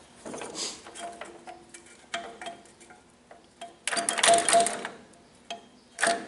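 Metallic clicks and clatter from the John Deere 60's two-cylinder engine being turned over by hand at its flywheel, with a denser burst of rattling about four seconds in. The engine turns freely: it is not seized.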